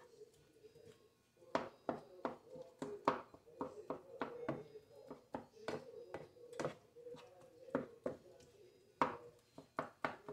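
Wooden spoon stirring ground beef in tomato purée in a skillet, knocking and scraping against the pan in irregular strokes about two a second, over a faint steady hum.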